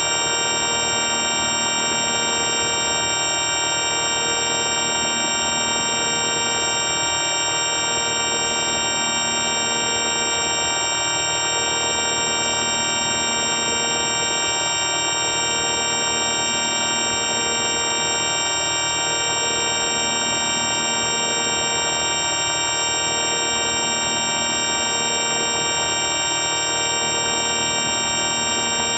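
Synthesized electronic drone sound effect: a steady, loud buzzing chord of many constant tones with a slight wobble about every two seconds, unchanging throughout.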